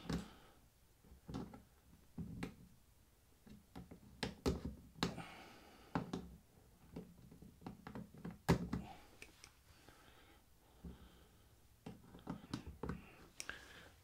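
Needle-nose pliers clicking and scraping on a metal one-way push-on keeper as it is twisted counterclockwise off a threaded stud on a plastic vacuum-line block. The sound is a scatter of faint, irregular clicks and taps.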